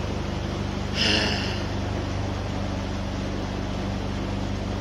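Boat engine running steadily, a low even hum, with water rushing at the stern. About a second in there is a brief breathy sound.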